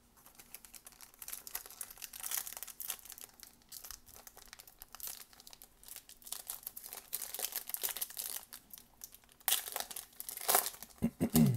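Foil wrapper of a Panini Prizm Draft Picks football card pack crinkling and tearing as it is ripped open by hand: a run of crackles with louder rips near the end. A short voice-like hum comes right at the end.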